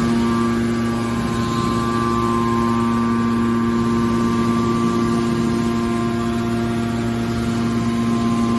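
Aluminum can baler machine running, its electric motor and hydraulic pump giving a steady hum with a few constant tones.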